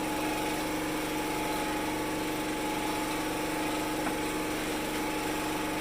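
An engine running steadily at a constant speed, with an even hum.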